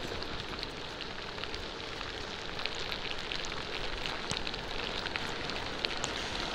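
Steady rain falling, with many small sharp ticks of drops striking close by.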